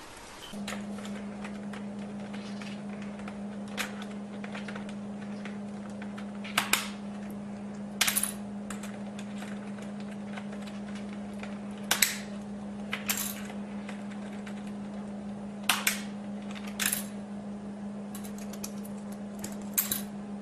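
About eight light, sharp clinks at irregular intervals, each ringing briefly, over a steady low hum.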